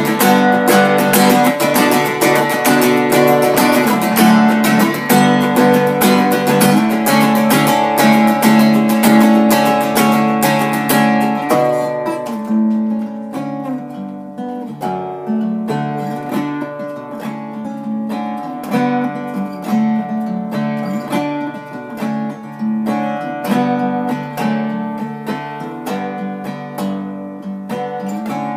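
Acoustic guitar strummed solo, full and dense for about the first twelve seconds, then played more softly and sparsely with separate strokes, slowly getting quieter: the instrumental close of the song.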